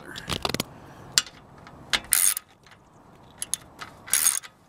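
Socket ratchet wrench clicking in several short bursts as a bolt is tightened to fasten a microinverter to a roof-mount rail.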